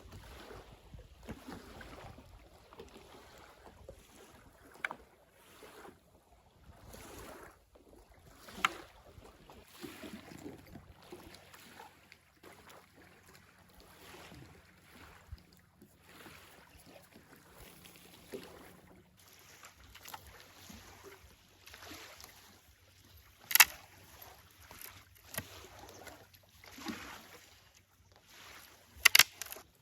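Irregular knocks, clatters and rustling, with three sharp, loud clicks or knocks scattered through.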